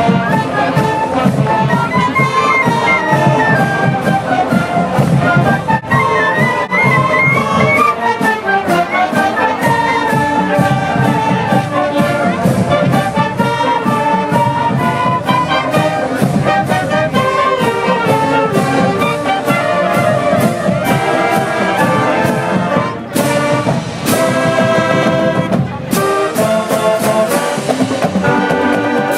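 Loud background music with a brass melody over a steady beat.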